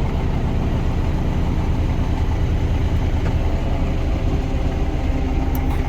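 John Deere 6420 tractor's four-cylinder diesel engine idling steadily, running again after a no-start cured by new fuel lines, fuel pump and bled injectors.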